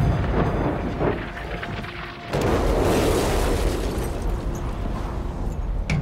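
Bomb explosions: heavy booms with long rolling rumbles. There is a smaller blast about a second in and a bigger one a little over two seconds in, whose rumble dies away slowly.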